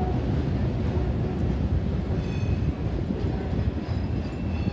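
Empty centerbeam flatcars of a freight train rolling across a steel girder bridge: a steady, heavy rumble of wheels on the bridge.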